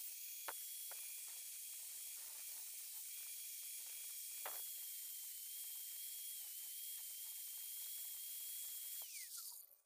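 Small electric angle grinder running with a steady high whine and hiss while a piece of PVC is held against its disc to shape it, with a couple of sharp ticks. Near the end it is switched off and the whine falls away quickly as the disc spins down.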